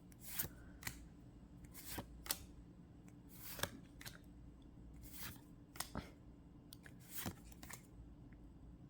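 Pokémon trading cards being handled and slid past one another as a booster pack is gone through: quiet, papery swishes and flicks about once a second.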